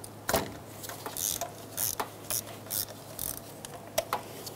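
Hand ratchet with a 14 mm socket on a long extension, clicking in short bursts about every half second as it is swung back and forth to loosen a spark plug.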